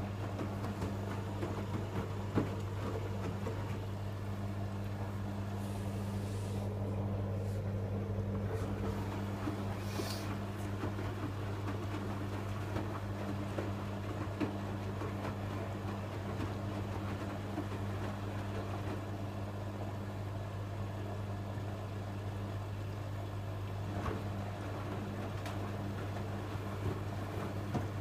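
Electrolux EWF12108W front-loading washing machine in its distribution rinse: the motor turns the drum with a steady low hum, and a few light knocks come through now and then.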